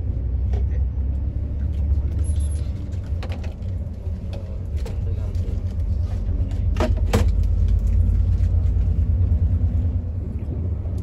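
Bus engine running with a steady low rumble, with two sharp clicks about seven seconds in.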